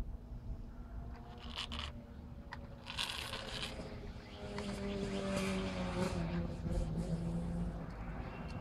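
Small plastic toy trucks pushed and scraped through dry sand in several short bouts, grainy scraping over a low rumble. A low steady drone comes in about halfway and fades near the end.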